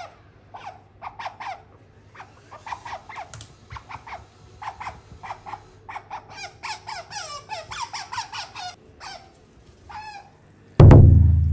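Asian small-clawed otter chirping: a long run of short, high squeaks, each falling in pitch, several a second in bunches. Near the end comes a sudden loud low hit that rings and fades over about a second.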